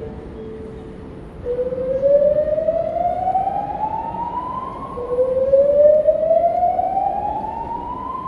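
Hotel fire alarm sounding a whoop tone: two loud rising sweeps, each climbing steadily in pitch for about three and a half seconds, the first starting about a second and a half in and the second about five seconds in.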